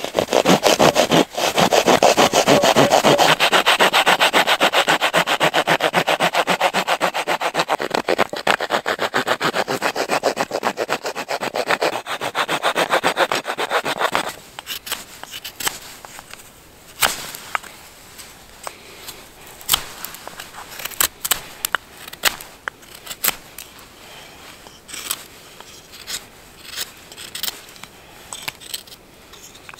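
Small hand saw cutting through a thin wooden block with rapid back-and-forth strokes, stopping about halfway through. After that, quieter scattered scrapes and clicks of a knife whittling the wood.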